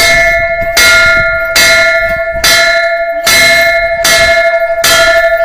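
Hanging metal temple bell rung by pulling its chain, struck about seven times at a little more than once a second. Each stroke rings on into the next with a clear, steady tone.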